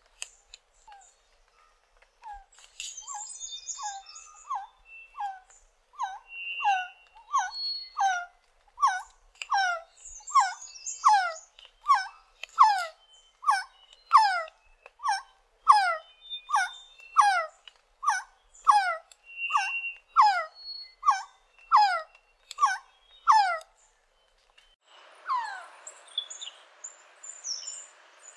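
Resplendent quetzal calling: a long, regular series of downslurred notes, about one and a half a second, then after a short break a couple more falling notes over a hiss of background noise near the end.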